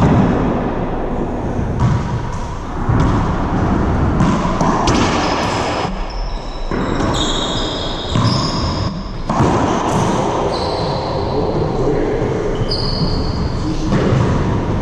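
A racquetball bouncing off the hardwood floor and smacking the court walls, with sneakers squeaking on the floor, echoing in the enclosed court.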